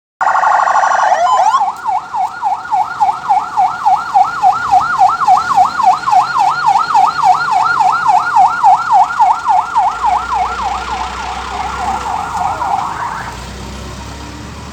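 Emergency vehicle's electronic siren in a fast yelp, sweeping up and down about four times a second after a brief steady opening tone, and cutting off near the end. A vehicle engine's low rumble sits under it in the last few seconds.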